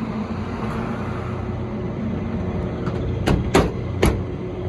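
ICP air-conditioning unit running in cooling mode with its blower on: a steady mechanical hum with several low tones. A little past three seconds in come three sharp knocks close together.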